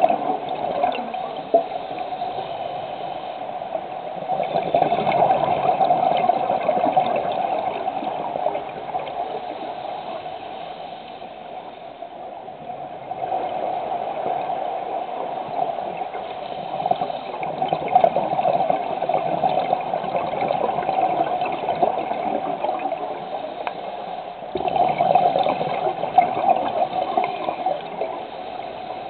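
Scuba divers' exhaled bubbles bubbling and gurgling underwater, swelling and fading in surges a few seconds long with the breaths.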